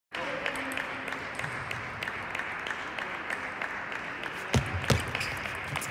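Table tennis balls ticking sharply and irregularly off bats and tables around a large, echoing hall, over a steady background hiss. Two heavier thuds come a little past four and a half seconds in.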